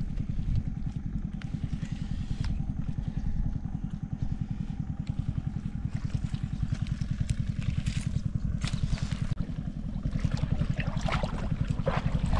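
A small engine running steadily with a fast, even pulse. Short splashing and clattering sounds come over it in the second half.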